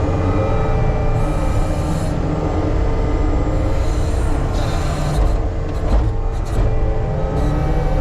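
Heavy earthmoving machine's diesel engine running steadily under load, with a whining tone that rises and falls and short spells of high hiss.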